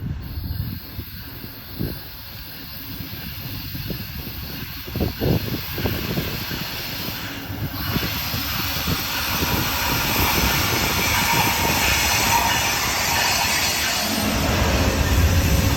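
Amtrak Downeaster passenger train arriving, its low rumble growing louder. From about halfway a steady hiss joins in, and the rumble gets heavier near the end as the train draws close.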